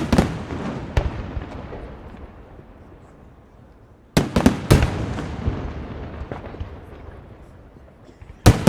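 Firework shells bursting with loud bangs: one just after the start and another about a second in, then several in quick succession about four seconds in and two more near the end, each bang followed by a long echo dying away.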